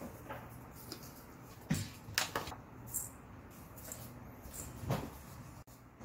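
A metal spoon knocking and clinking against a stainless steel mixing bowl as seasonings are spooned in: a handful of short, sharp knocks, the loudest about two seconds in.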